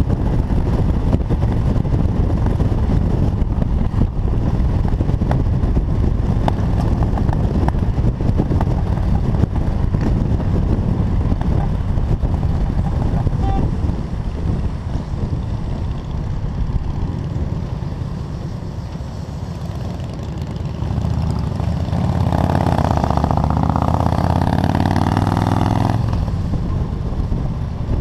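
Motorcycle running at highway speed, with wind rushing over the helmet-mounted microphone and engine noise. Near the end a louder engine note comes in for about five seconds, its pitch bending slightly, then cuts off.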